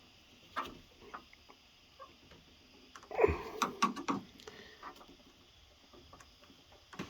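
Scattered light clicks and taps of hand work at a truck door, with a louder flurry of knocks and rubbing about three seconds in: a rubber window gasket being pressed into its channel with a blunt flat-tip screwdriver.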